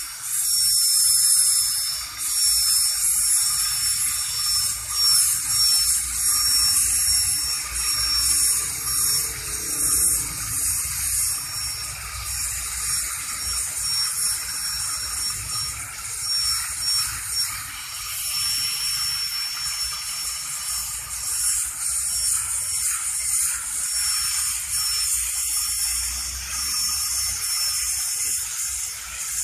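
Dental high-speed handpiece (air-turbine drill) running against a tooth: a steady high whine whose pitch dips slightly now and then, over the hiss of its water spray.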